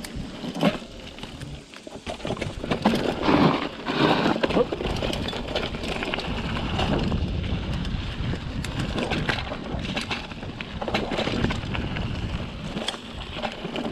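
Mountain bike rolling down a dirt forest singletrack: tyres on the loose dirt and the bike rattling over bumps, with frequent sharp clicks and knocks over a steady low rumble.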